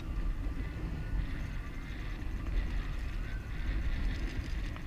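Wind rumbling steadily on the camera's microphone on an open boat, with one sharp click at the start.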